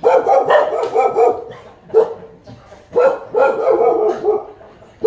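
Dog barking in quick runs of several barks, with a single bark about two seconds in.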